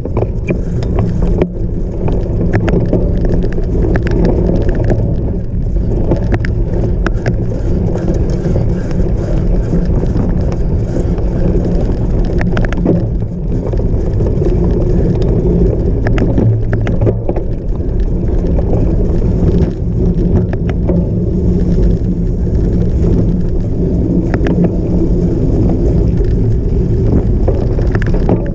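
Cyclocross bike ridden fast over rough off-road ground: a steady low rumble of wind and tyres, with frequent sharp rattles and clicks from the bike.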